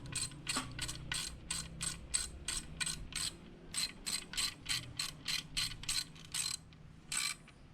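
Hand ratchet wrench clicking steadily, about four clicks a second, as the handle is swung back and forth to run bolts out of the VQ37VHR engine block. There is a short pause about halfway and one last click near the end.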